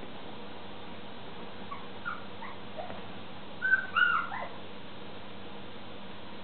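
Four-week-old smooth fox terrier puppies giving high, squeaky yips and whimpers while play-fighting: a few short yips, then a louder burst of squeals about four seconds in.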